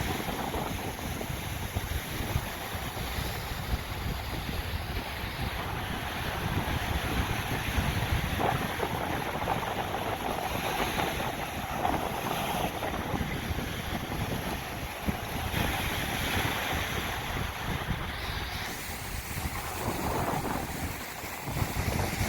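Waves breaking on a beach, a steady wash of surf, with wind buffeting the microphone.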